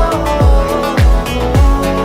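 Background music: a song with a deep kick drum that drops in pitch on each beat, roughly every half second, under a held melody.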